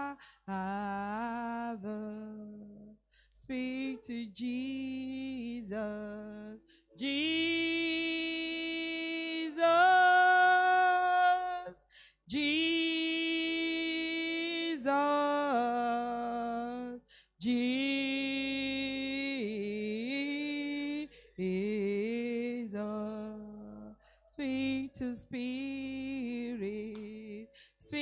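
A single voice singing a slow worship song unaccompanied, holding long notes in phrases of a few seconds, with short breaks between them.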